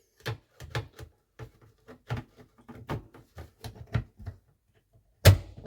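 Irregular light clicks and taps from handling the RC boat's plastic hatch and its push-button latch, then one sharp, louder knock about five seconds in.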